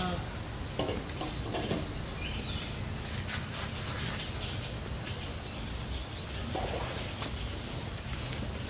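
Steady high-pitched insect drone, with a bird's short rising chirps repeated every second or so and a few faint knocks.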